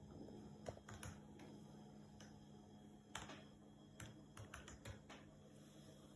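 Latex-gloved fingers typing on a laptop keyboard: soft, irregular key clicks, a dozen or so, over a faint steady low hum.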